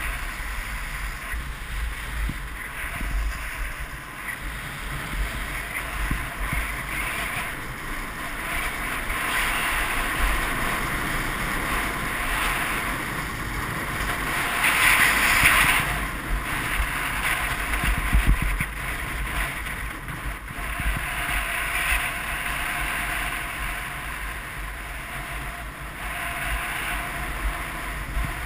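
Skis sliding and scraping over groomed snow during a downhill run, a steady hiss, with wind buffeting the microphone. The hiss swells for a moment about halfway through.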